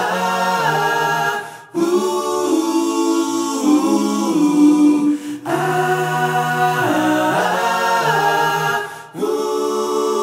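Intro music of voices singing a cappella: held chords that move in phrases of a few seconds, each phrase stopping briefly, about two, five and nine seconds in.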